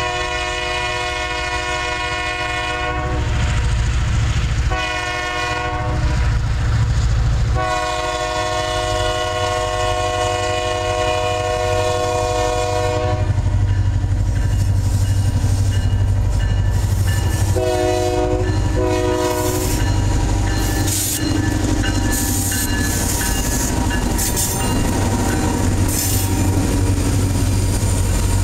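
EMD GP38-3 diesel locomotive's air horn blowing for a grade crossing: a long blast, a short one and another long one, over the low rumble of its engine. As the locomotive passes, it gives two more short horn blasts, and freight cars follow with clicking and rattling wheels over the rail joints.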